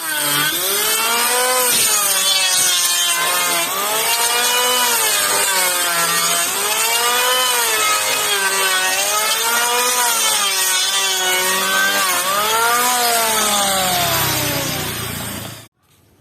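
Makita electric hand planer running and cutting wood. Its whine dips in pitch and recovers over and over, about six times as it works the board, then drops and stops near the end.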